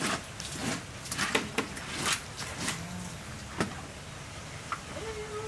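Large banana leaves being handled and laid out on a table: a scatter of crackling rustles and light knocks.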